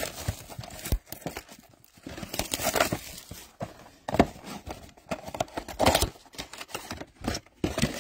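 Plastic shrink wrap being torn and crumpled off a trading card box, in irregular crackling rips with short pauses between them.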